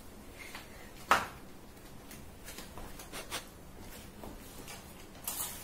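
A few light clicks and knocks from objects being handled in a small room, one sharper knock about a second in.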